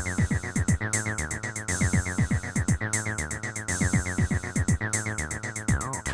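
Roland T-8 drum machine and bass synth playing an electronic pattern: a steady beat of kick drums that drop in pitch, ticking hi-hats and a sequenced bassline. The pattern changes near the end.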